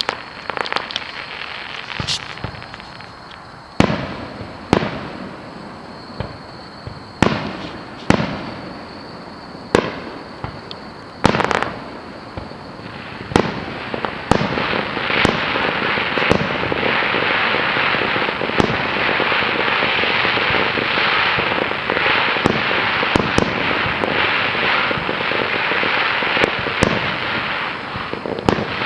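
Fireworks going off: separate bangs a second or two apart, then from about halfway through a dense, continuous crackle with more bangs over it.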